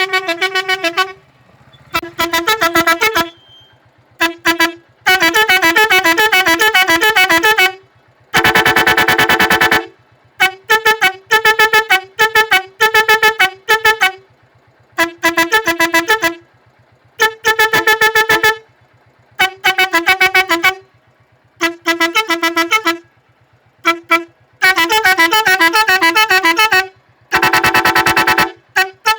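Four-melody musical air horn playing its tunes: quick runs of short trumpet notes and a few held chords, in loud bursts separated by short pauses.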